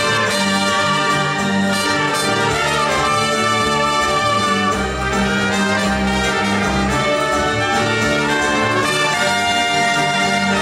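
A live band playing with a trumpet leading, over acoustic guitar, banjo, accordion and fiddle.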